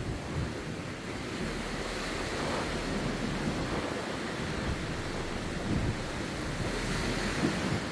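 Surf washing onto a beach in a steady rush, with wind buffeting the microphone.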